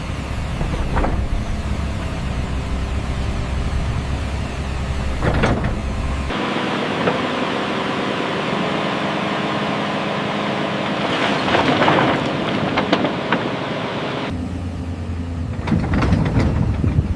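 Excavator's diesel engine running steadily, with short metallic clanks and scraping from the bucket working the ground, loudest in a cluster about 11 to 13 seconds in. The engine sound changes abruptly about six seconds in and again near the end.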